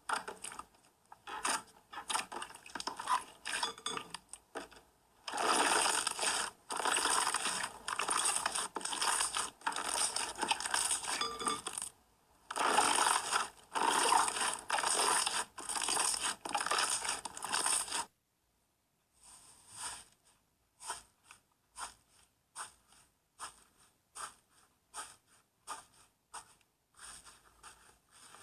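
Hands squeezing, poking and stretching slime, giving sticky clicks and pops, with two long stretches of dense crackling squelching in the middle and a brief cut-out of all sound after them.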